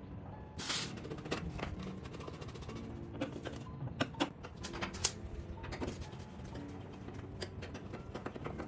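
Soft background music with steady held notes, overlaid by a run of sharp clicks and taps, the strongest about half a second in and around four and five seconds in.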